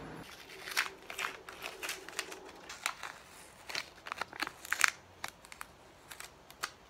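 Blue painter's tape being peeled off a painted plastic Nerf Recon part: a run of irregular crackles, snaps and tearing sounds.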